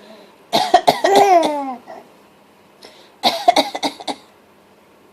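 Deliberate, playful coughing in two bouts. The first comes about half a second in and ends in a falling voiced tail; the second, a run of quick coughs, comes just after the three-second mark.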